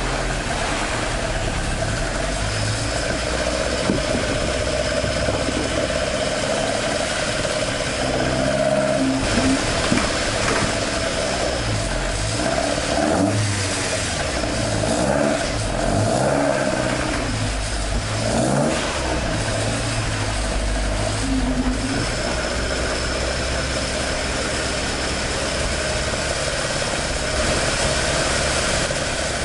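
Toyota AE86's 4A-GE four-cylinder engine running. It idles steadily, is blipped up and down repeatedly from about a quarter of the way in to about three quarters, then settles back to idle.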